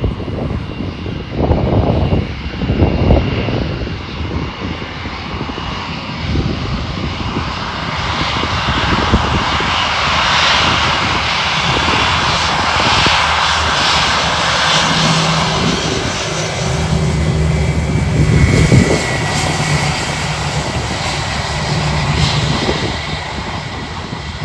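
Airbus A320-232's twin IAE V2500 turbofan engines at taxi power as the jet rolls past close by: a jet hiss and whine that builds and is loudest about halfway through, then a steadier low engine hum as it turns away. Wind buffets the microphone in the first few seconds.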